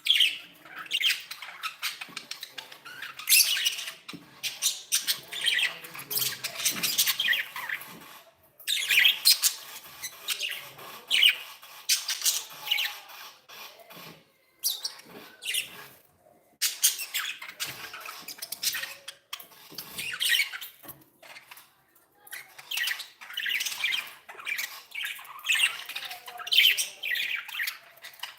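Pet budgerigars chattering and chirping in quick, high-pitched bouts broken by short pauses.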